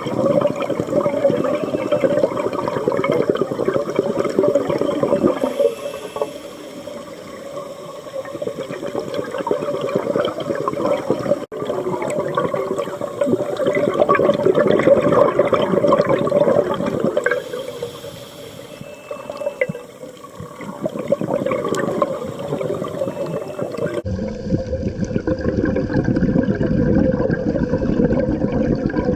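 Scuba diver breathing through a regulator underwater: three long exhalations, each a loud rush of bubbles, with quieter stretches between them.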